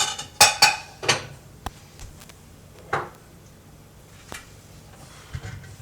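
Metal kitchen utensil clinking against a pan: a quick run of ringing clinks in the first second, then a couple of single knocks with pauses between.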